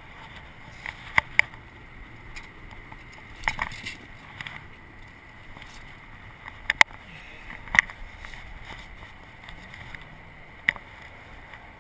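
Half a dozen sharp clicks and knocks of handling, as the sturgeon is lifted from the landing net, over a steady hum of distant traffic.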